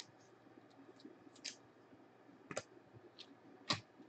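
Glossy basketball trading cards being flipped through by hand, each card sliding off the stack with a faint, sharp click. The clicks come a few at a time at irregular intervals, the loudest about three and a half seconds in.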